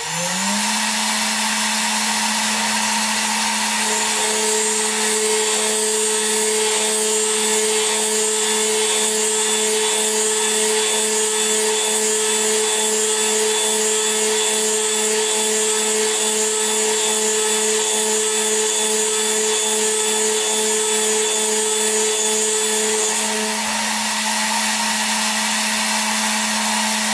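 Small CNC mill's high-speed spindle spinning up in the first half second and running with a steady whine at about 13,000 RPM. From about four seconds in until near the end a second, higher whine joins as the 3 mm HSS end mill cuts circles with the HBS57-driven axes at a raised feed rate.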